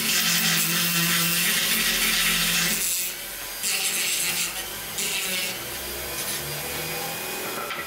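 Carved wooden board being sanded: rasping rubbing strokes, with a steady low hum through the first three seconds. The sound grows quieter toward the end.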